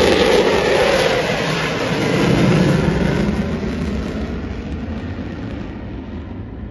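Jet roar of four US Air Force Thunderbirds F-16 fighters passing overhead in formation. It is loud at first, the roar drops in pitch about two seconds in, and then it fades steadily as the jets fly away.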